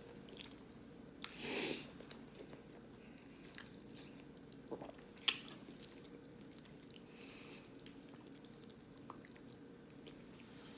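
A person chewing food close to the microphone, with faint wet mouth clicks, a louder crunching or rustling burst about a second and a half in, and a sharp click about five seconds in.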